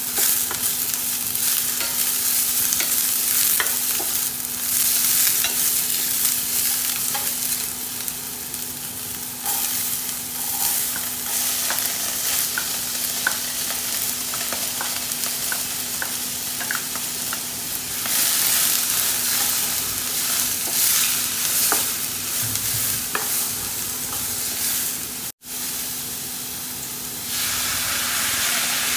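Oil sizzling in a stainless steel frying pan as onions, chillies, garlic and then black beans are stir-fried, with a wooden spatula scraping and tapping the pan in many small clicks. Near the end the sizzle gives way to a smoother, steadier hiss as water goes into the hot pan.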